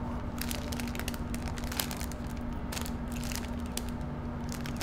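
Plastic snack bag of grapes crinkling as it is handled, a series of short, irregular crackles.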